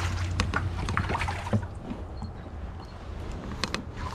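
Handling noise in a small fishing boat: scattered knocks, clicks and rustles as gear is moved and a long-handled landing net is picked up and swung out over the side. Faint water sounds and a steady low hum run underneath.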